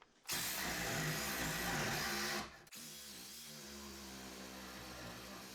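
A power tool running: a loud stretch of about two seconds that stops abruptly, then after a brief break a steadier, quieter run.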